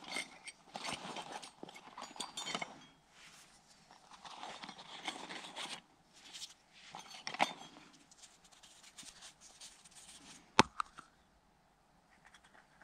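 Rustling and crinkling of a nylon pouch being rummaged through by hand, with small clicks of plastic gear. Near the end comes a single sharp snap as a small plastic container is pulled open.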